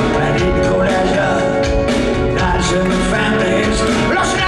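Live rock band playing at full volume: a male lead vocal over electric guitar and a steady drum beat.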